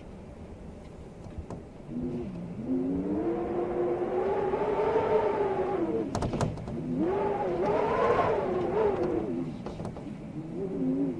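Wind howling in gusts: a pitched moan that swells about two seconds in, dips briefly in the middle, swells again and dies away near the end, with a few sharp clicks in the middle.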